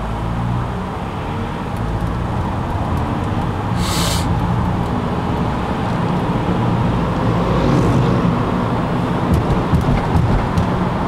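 Car engine and tyre noise heard from inside the cabin, a low steady hum that grows slowly louder as the car picks up speed. A short hiss cuts through about four seconds in.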